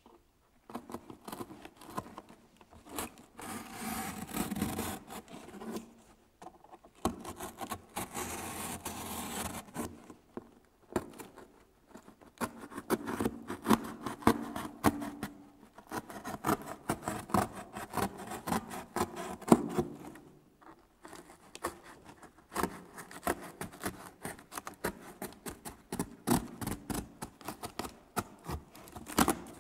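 Box cutter blade sawing through a corrugated cardboard box: long runs of quick scratching strokes and clicks as the blade is drawn along the cut line, broken by a few short pauses.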